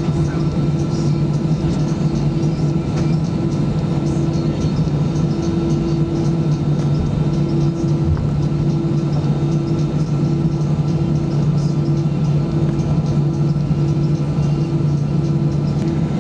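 Cabin noise of an Airbus A320-214 taxiing, with its CFM56 engines at idle. A steady low hum is joined by a higher hum that pulses on and off about once a second from about halfway through.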